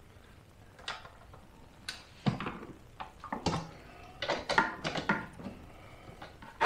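Light, irregular metallic clicks and clinks of a hand tool on the screws and metal exhaust parts of a Honda EU2200i generator as the spark arrestor is refitted. The clicks come a few at a time at first, then bunch up over a second or so past the middle.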